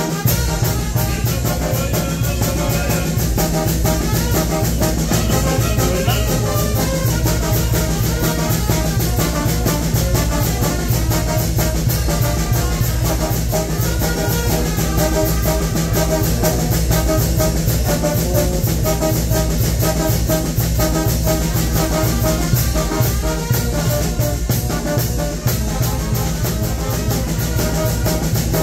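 Mexican banda (wind band) playing a dance tune live: tubas carrying a strong bass line under trumpets and other brass, over a steady drum beat.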